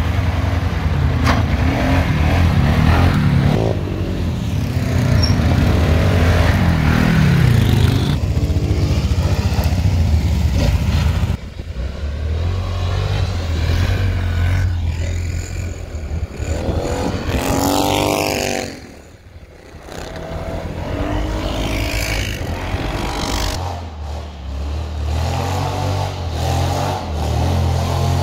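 Quad-bike (ATV) engines running and revving, the pitch rising and falling as the throttle opens and closes, with abrupt changes in sound where separate riding clips are cut together.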